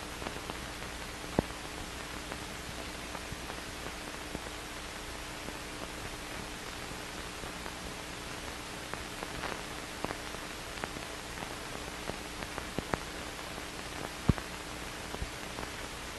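Steady hiss with a faint hum and scattered clicks and pops, the surface noise of an old optical film soundtrack during a gap in the narration.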